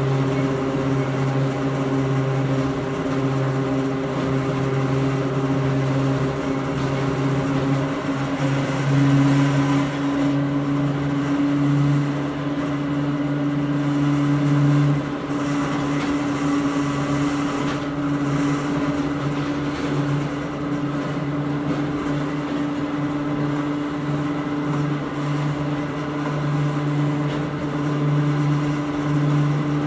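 Hakone Tozan Railway Moha 1 electric railcar running, heard from inside the car: the nose-suspended (tsurikake) traction motors and gearing give a steady low hum with a higher whine over the noise of wheels on rail. The upper tone steps up slightly about nine seconds in.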